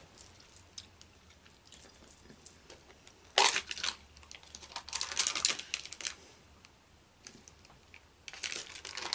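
Plastic tub being opened: a sharp crackle as the lid comes off about three seconds in, then more crinkling and clicking of thin plastic as the lid and tub are handled, with another burst near the end.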